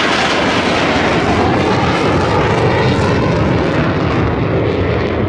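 Avro Vulcan delta-wing bomber's four Rolls-Royce Olympus turbojets, loud as it flies low past. Near the end the high-pitched hiss fades as it moves away, leaving a deep rumble.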